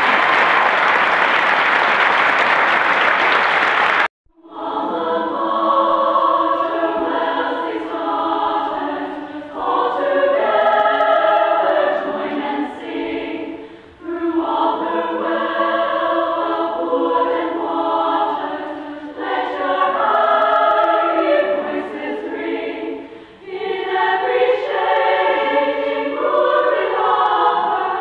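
Applause that cuts off abruptly about four seconds in, followed by a choir singing in phrases with short breaks between them.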